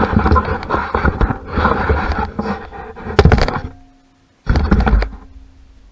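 Wrench and metal engine parts clattering and scraping as someone works a tool into the engine to reach a connecting rod seized to the crankshaft, with a hard knock about three seconds in and a short burst of clatter near the end.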